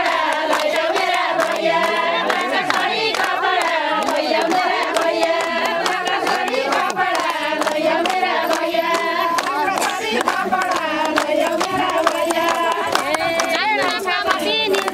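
A group of women singing a Nepali Ratyauli folk song together, with many hands clapping along.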